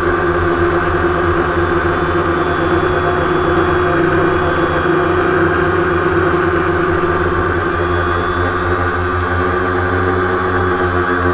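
DJI Phantom quadcopter's electric motors and propellers buzzing steadily in flight, heard from the on-board GoPro, a held whine of several fixed tones over rushing air noise.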